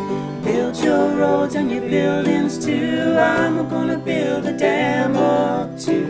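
Two acoustic guitars and a banjo playing a folk tune together, with a sung vocal melody coming in about half a second in.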